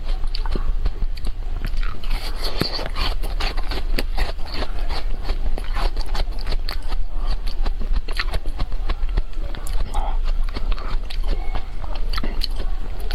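Close-up eating sounds of a chocolate-coated ice cream bar: a quick run of crisp cracks as the chocolate shell is bitten and crunched, mixed with wet chewing. A steady low hum runs underneath.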